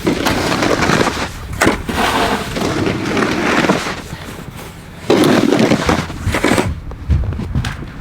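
Snow shovels scooping and scraping through deep, heavy snow in long strokes, two main stretches of scraping with a few sharp knocks between them.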